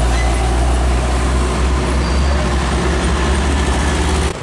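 Heavy diesel truck engine running steadily under load as a tandem-axle box truck pulls through a tight bend, with other traffic behind it. The rumble breaks off sharply near the end.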